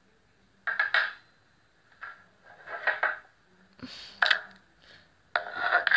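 Metal fork cutting into a miniature pool table, giving several short, separate scraping sounds with a sharp click about four seconds in.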